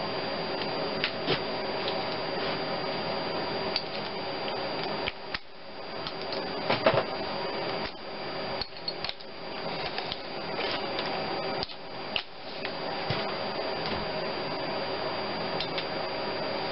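Hand tools clinking and tapping on metal as the throttle body's nuts and bolts are fitted and tightened on the engine. There are a handful of sharp metallic clicks, the loudest about seven seconds in, over a steady machine hum in the background.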